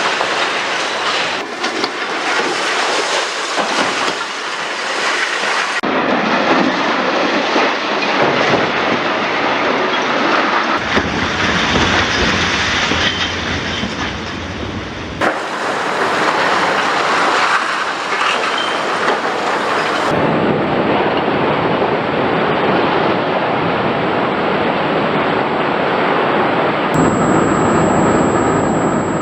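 Loud, continuous heavy-machinery noise of large excavators at work, rumbling and clattering, cut together from several short clips that change abruptly every few seconds.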